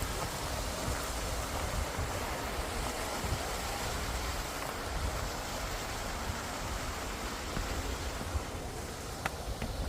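Steady rush of flowing water from a small waterfall, with two short sharp clicks near the end.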